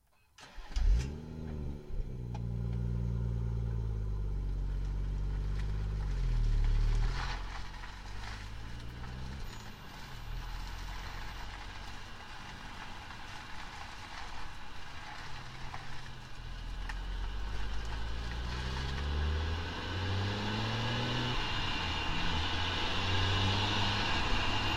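A vehicle's differential and driveline heard through a microphone taped to the differential housing while driving: a stack of low drivetrain tones that climb and fall with road speed, with rougher road noise in between. The source of the mystery noise is not identified.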